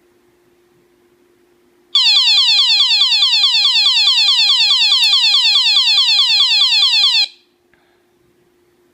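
Electronic alarm sounder of a signal-loss alert circuit going off, which signals that the monitored signal has been lost: a fast run of falling chirps, about four or five a second, for about five seconds, then it cuts off suddenly.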